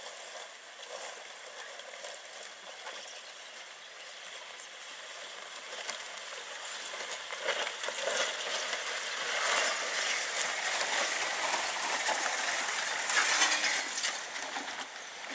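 Bush branches and twigs scratching and clicking along the Subaru XV's body as it pushes through dense scrub on the track, getting louder over the second half.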